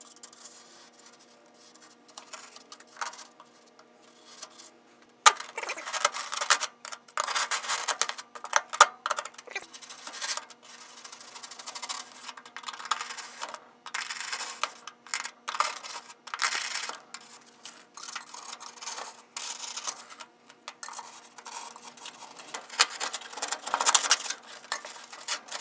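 Old kiln insulation being scraped out of a furnace cavity with a hand scraper made from sharpened aluminium U-channel: irregular, rapid scraping strokes starting about five seconds in, with short pauses. A faint steady hum runs underneath.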